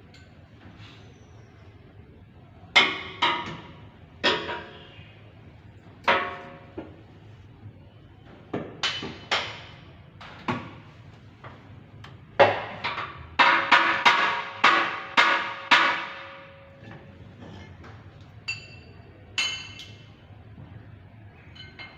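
Hammer blows on metal, each ringing briefly: scattered single strikes, then a quick run of about ten blows near the middle.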